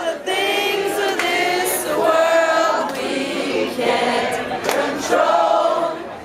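Many voices singing together in a live sing-along, holding and changing notes.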